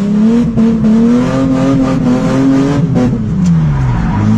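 Mercedes-Benz C280 (W202) engine, its exhaust open from the catalytic converter back, revving up steadily under power and then dropping off about three seconds in, before picking up again near the end. Heard from inside the car's cabin.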